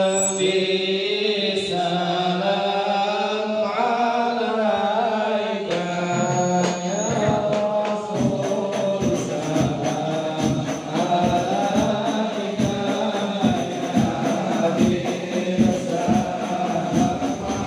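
Group of male voices singing a devotional Arabic chant (shalawat) together in long, drawn-out lines. About six seconds in, hadroh frame drums (rebana) come in with a steady beat under the singing.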